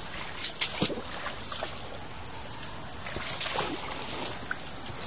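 River water sloshing and splashing around someone wading in the shallows at the bank, with scattered light knocks and leaf rustles.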